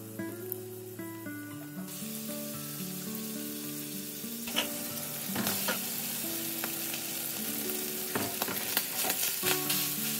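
Beaten egg sizzling in hot oil in a frying pan, starting about two seconds in and growing louder, then cooked rice tipped in and stir-fried on high heat, a spatula scraping and tapping against the pan.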